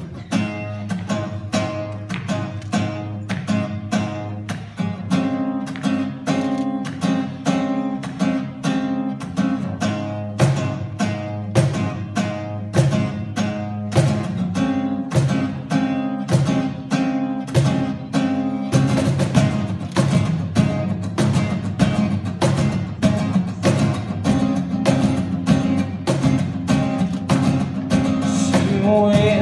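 Acoustic guitar strumming a steady rhythmic instrumental section, with a cajon keeping time; the strumming grows busier about two-thirds of the way through.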